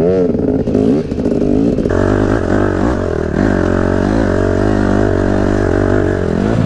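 Dirt bike engine revving, its pitch rising and falling with the throttle, then settling about two seconds in into a steadier running note that wavers slightly.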